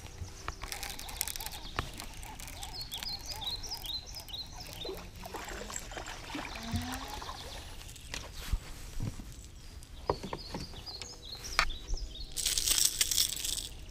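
A bass being reeled to the boat on a baitcasting reel and lifted from the water by hand: scattered clicks and knocks of reel and rod handling, with a loud burst of splashing near the end. Birds chirp in the background.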